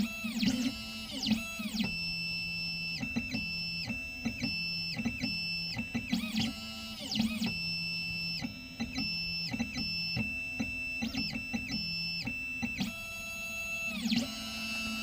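Background music: guitar notes that ring and fade over a repeating bass line.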